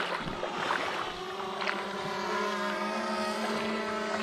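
Quadcopter drone's motors and propellers hovering with a steady, even-pitched whine.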